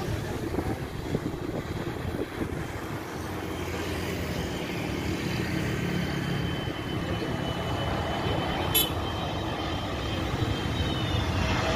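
Jet engines of an Airbus A320neo on final approach: a steady rumble with a faint high whine, growing slowly louder as the aircraft nears. A single sharp click about nine seconds in.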